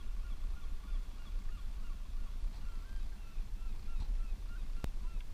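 Seabirds calling from the sea cliffs: many short, wavering calls overlapping one another, over a low steady rumble, with a couple of sharp clicks near the end.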